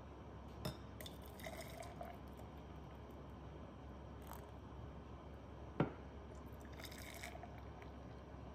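Ginger syrup poured from a pot into glass jars: a faint trickling, with two light taps, the first under a second in and the second near six seconds.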